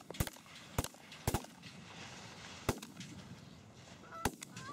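A volley of shotgun blasts from several hunters firing at Canada geese overhead: about five shots at uneven spacing through the first few seconds, with a last shot near the end. A few Canada goose honks are heard near the end.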